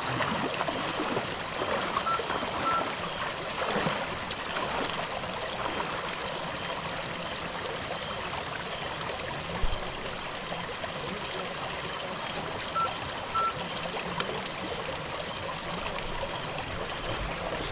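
Flowing stream water rushing steadily, with a single low thump about ten seconds in.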